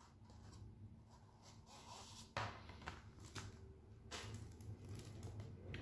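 Paper and card rustling, with a few sharp light taps, as a printed CD booklet and insert are handled, over a faint steady low hum.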